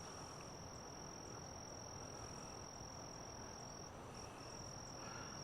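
Faint, steady high-pitched insect trilling that breaks off briefly about four seconds in.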